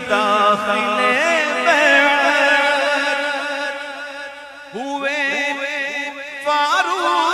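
Male naat reciter singing a manqabat, drawing out long ornamented melodic runs with quick rising turns and no clear words, over a steady held drone.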